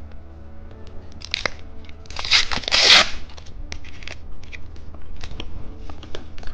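Plastic candy packaging being handled and opened: scattered crinkles and clicks, with a loud tearing, crackling rustle about two to three seconds in.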